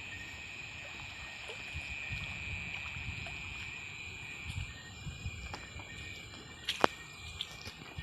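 Night riverside ambience: a steady high drone of night insects, with low irregular water sloshing and a few sharp clicks near the end.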